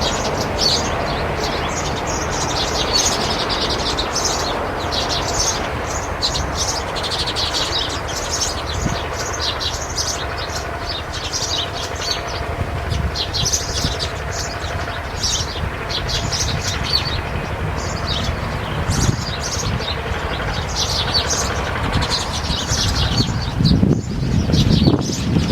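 Birds chirping, many short high chirps in quick succession, over a steady background noise; a lower, louder sound rises near the end.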